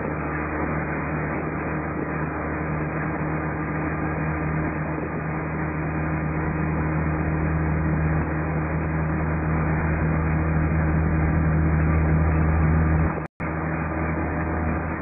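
Steady drone of a car's engine and tyre noise while driving along a road, with a low hum throughout. The sound cuts out for an instant near the end.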